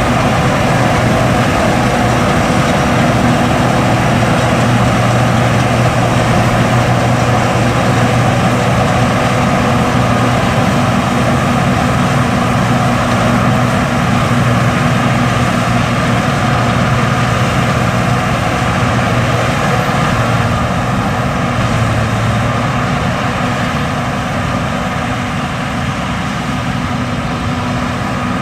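John Deere S550 combine, a 271-horsepower Class 5 machine, running while harvesting: a steady heavy engine and machinery drone that grows a little quieter after about twenty seconds.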